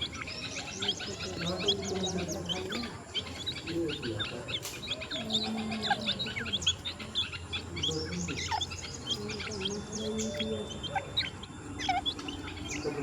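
A group of partridge (titar) chicks peeping continuously as they feed on termites: many short, high chirps overlapping in quick succession.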